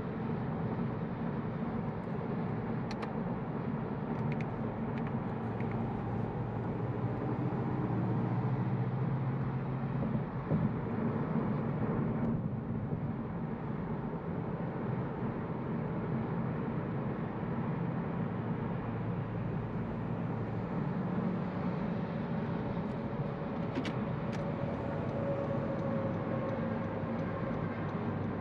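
In-cabin sound of a 2021 Honda Civic Sport Hatchback cruising at about 55 mph: steady road and tyre noise, with the 1.5-litre turbocharged four-cylinder running low and even underneath.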